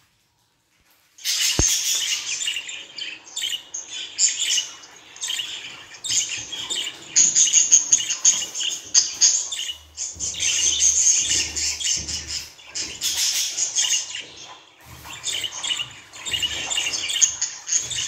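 Budgerigar chatter: fast, continuous chirping, warbling and squawks. It starts suddenly about a second in.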